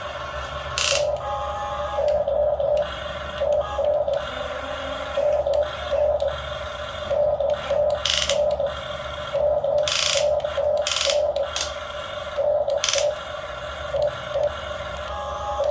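Miniature RC excavator's electric hydraulic pump whining, switching on and off in short pulses as the controls are worked, with a few brief noisy bursts.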